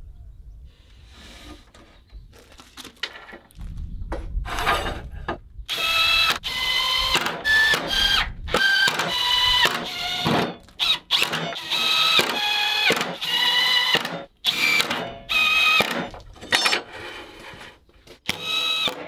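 Cordless drill-driver driving screws into a formwork board: a quick series of short whirring bursts, each rising and falling in pitch and stopping abruptly, after a few faint handling clicks.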